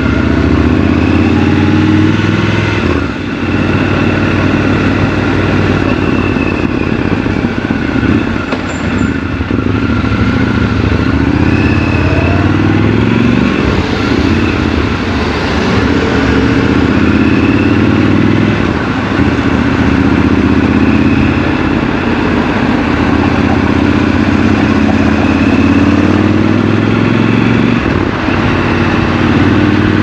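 Triumph Scrambler 1200 XC's 1200 cc parallel-twin engine heard from the rider's seat, riding through city traffic. The revs rise and fall again and again as it pulls away and runs through the gears.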